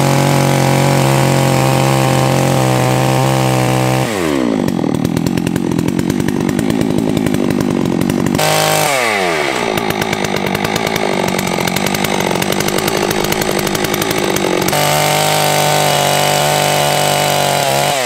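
Holzfforma G660 two-stroke chainsaw making a felling cut in a standing tree. It holds a steady speed for the first few seconds, then runs flat out in the cut, eases off briefly about eight seconds in, cuts again, and settles back to a steady speed about fifteen seconds in.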